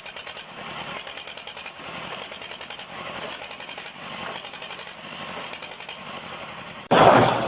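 A motor running steadily with a fast, even pulse. Near the end, a much louder, rougher noise cuts in briefly.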